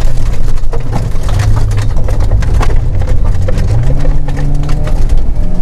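Volvo 940 rally car's engine heard from inside the cabin on a gravel stage. The engine note drops about a second in and climbs again from about four seconds in as the car pulls away, with stones and gravel clicking and knocking against the car throughout.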